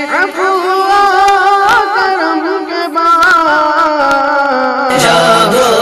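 An Urdu naat sung in a wavering, ornamented line, the singer drawing out the notes of the verse. Near the end a lower, fuller backing layer comes in beneath the voice.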